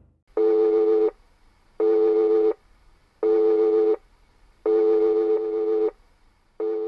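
A low electronic tone pulsing on and off, five pulses of about three-quarters of a second each, roughly every one and a half seconds, the fourth held longer; it sounds like a telephone busy signal.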